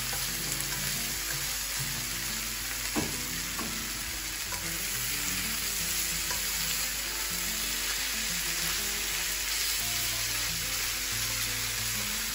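Instant noodles with meat and carrots sizzling in a hot non-stick frying pan as a spatula stirs and turns them, with a couple of brief scrapes about three seconds in.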